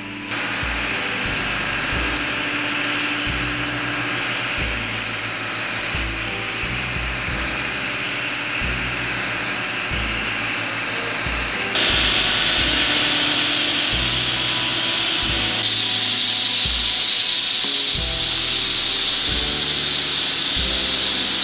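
High-pressure spray lance on a washing pump unit hissing steadily as it sprays detergent foam and water over the shed walls and fittings. The hiss changes tone about twelve and sixteen seconds in. Soft background music plays underneath.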